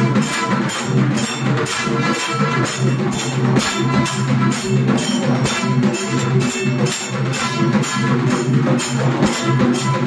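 Temple percussion music with drums and ringing metal struck in a fast, even beat about three to four times a second, over a steady low droning tone.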